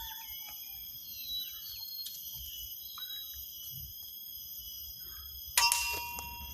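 Golok (machete) blade struck once near the end, a sharp metallic clang that rings briefly. Behind it runs a steady high insect drone with a few bird chirps.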